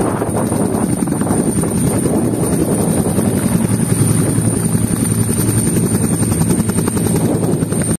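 Bell 212 helicopter on the ground after landing, its twin turboshaft engines running with a steady high whine and its two-bladed main rotor turning with a rapid beat.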